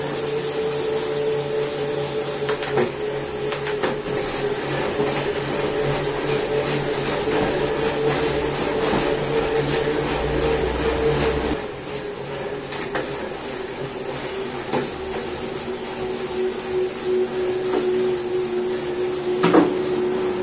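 Tacx Neo 2T direct-drive smart trainer running under a pedalling rider: a steady motor whine with a low rumble underneath. About halfway through the rumble stops and the whine drops slightly in pitch, and a few short clicks sound here and there.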